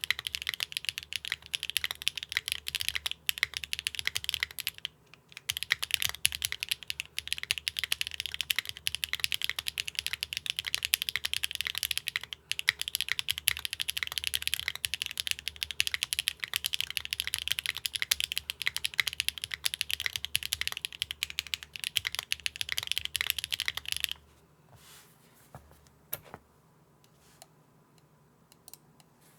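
Fast, continuous typing on a Neo65 custom mechanical keyboard with HMX Catmint switches, a carbon-fibre plate, no case foam and GMK keycaps, pausing briefly about five seconds in. Near the end the typing stops, leaving only a few single key presses.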